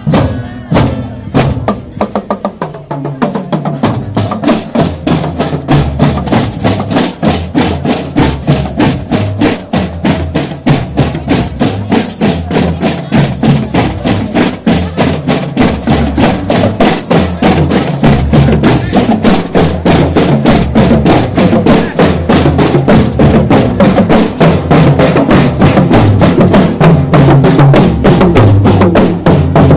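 Marching drum band playing: rapid, rhythmic snare strokes and rolls over a pattern of low bass drum beats.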